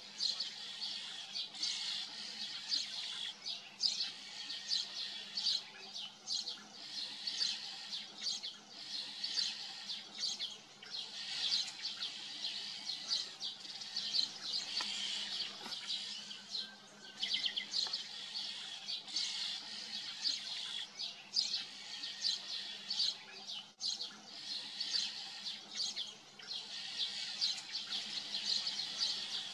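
Small birds chirping continuously, a dense run of quick high-pitched chirps and twitters.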